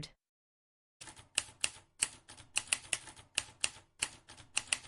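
Typewriter keys clacking in a rapid, irregular run, several strikes a second, starting about a second in after a moment of silence.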